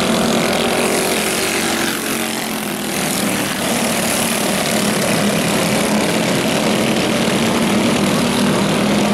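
Several small kart engines running hard together as the karts lap a dirt oval, a steady high buzz that dips briefly about two seconds in, then holds steady again.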